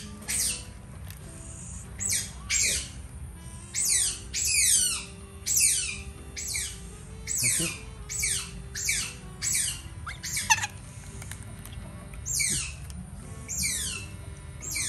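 Young otter squealing over and over, each high call sliding down in pitch, about one or two a second with a short pause in the middle. The otter is protesting as it is held and dosed with medicine from a syringe.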